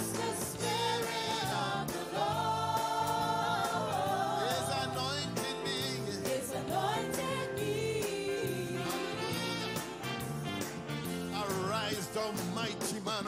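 Gospel worship song: singing over a band with drums, the voice holding long wavering notes and then running through quick ornamented lines near the end.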